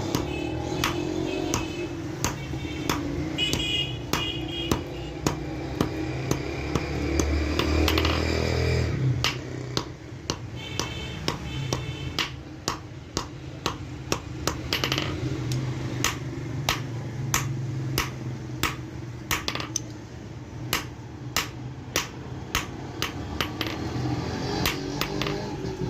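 Hand hammer striking hot steel on an anvil in a steady rhythm of about one to two blows a second, some blows ringing with a short metallic ping, over a low background rumble.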